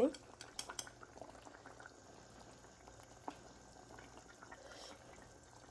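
Pot of khichuri with potatoes bubbling faintly on the stove, with a few light clicks in the first second and another near the middle.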